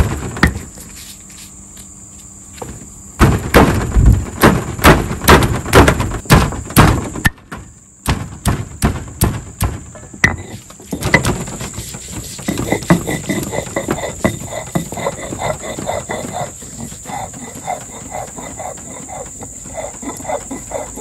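Stone roller on a granite grinding slab: about ten heavy knocks, two or three a second, as it crushes pieces of fresh turmeric, then quicker, softer strokes as it is rolled back and forth to grind them to a paste. Insects buzz steadily behind.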